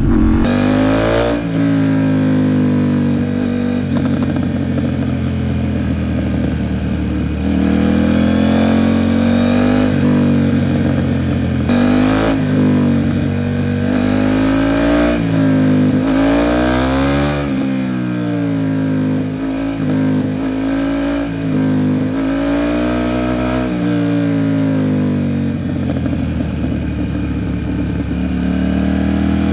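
KTM 790 Duke's parallel-twin engine through an Arrow Pro Race titanium exhaust, revving up and easing off again and again as the bike accelerates and slows through bends.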